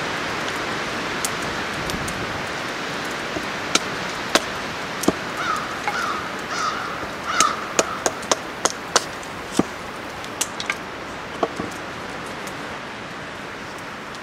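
A steady rush of wind, fading slowly, with a scattering of sharp wooden clacks and knocks from a hatchet and split cedar kindling on a chopping stump. Midway, a crow caws about five times in quick succession.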